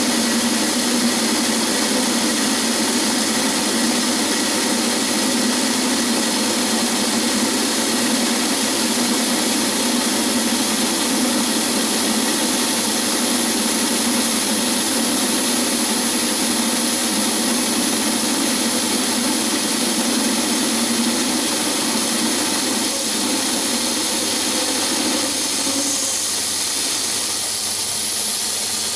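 Myford ML7 lathe running under a cut, its tool turning down a metal bar: a steady mechanical whir with cutting noise, the lower hum easing near the end.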